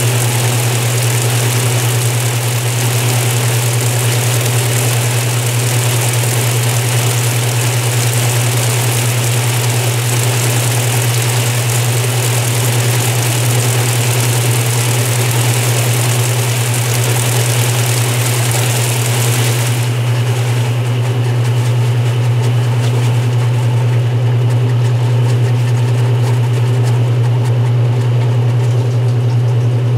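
Restored 1978 Maytag LA806 top-load washer running its cycle: a steady low motor hum under a broad hiss. The upper part of the hiss drops away about twenty seconds in.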